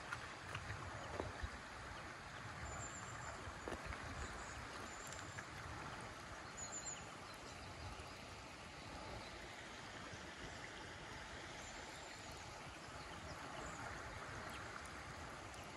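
Shallow river running over a gravel riffle: a steady, soft rush of water. A few soft knocks come in the first five seconds, and faint high chirps come now and then.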